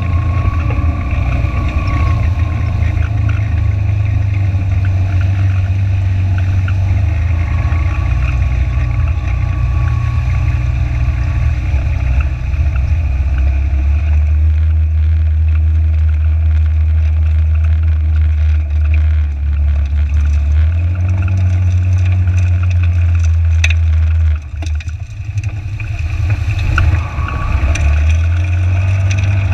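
Side-by-side UTV engine running under load as it wades through a flooded creek, with water rushing and churning against the wheels. The engine note shifts a few times, drops away about 24 seconds in, then picks up again a couple of seconds later.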